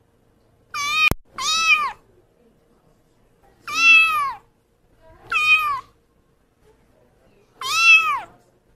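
Kitten meowing five times, each high meow rising and then falling in pitch, with pauses of a second or two between them. A brief sharp click sounds just after the first meow.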